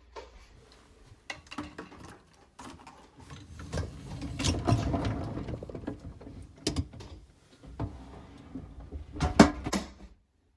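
A dishwasher being loaded and shut: scattered clicks and clatter, a longer rattling rumble in the middle, and a loud clunk near the end.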